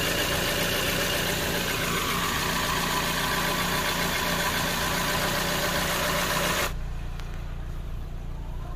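Ford EcoSport engine idling just after an oil change, run to circulate the fresh oil: heard from underneath the car, a loud steady running noise with a steady hum. About two-thirds of the way through it drops suddenly to a quieter, muffled rumble heard from inside the cabin.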